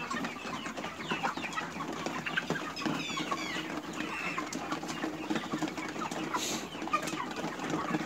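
Flock of 53-day-old chicks clucking and chirping as they crowd around a drinker, with scattered light clicks among the calls.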